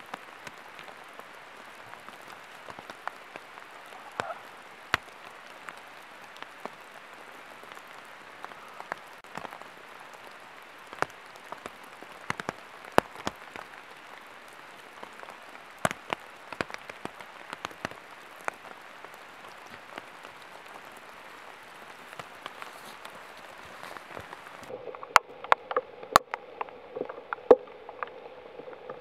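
Steady rain falling in a forest, with scattered sharper taps of drops hitting leaves. Near the end the sound changes to closer, more frequent taps and rustling.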